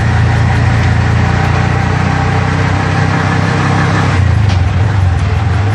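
Engine of a small handlebar-steered motor vehicle running steadily while driving, heard close up from the driver's seat; its pitch drops a little about four seconds in.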